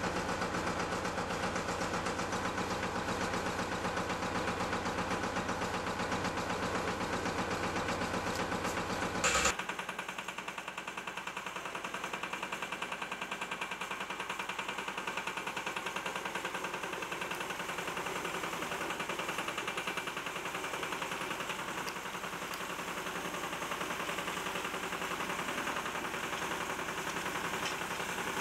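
Bobcat M611 skid-steer loader's engine running with an even, rapid beat. About nine seconds in there is a short loud bump, and the engine sound then turns quieter and thinner.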